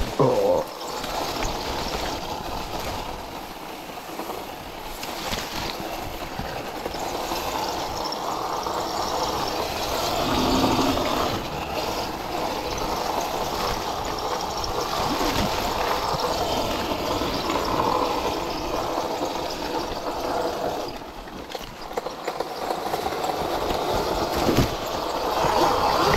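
Riding noise from a Sur-Ron electric dirt bike: a steady rush of wind and tyre noise that swells and eases slightly.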